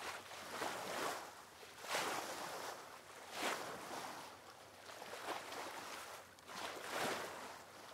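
Sea water rushing along the hull of a sailing yacht running downwind under sail, swelling and easing every second or so as the boat moves through the waves.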